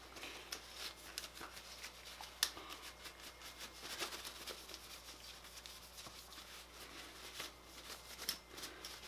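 Faint rubbing and rustling of a paper towel wiping old lube and carbon buildup off an AR-15 bolt carrier, with scattered light clicks of the metal part being handled, the sharpest about two and a half seconds in.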